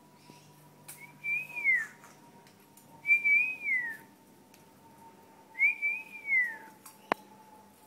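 Indian ringneck parakeet whistling the same short phrase three times, each a clear whistle that rises slightly and then falls away. A sharp click near the end.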